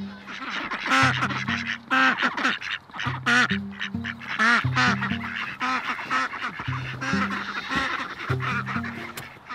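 Domestic ducks quacking, many loud calls in quick succession, over background music with a steady stepping bass line.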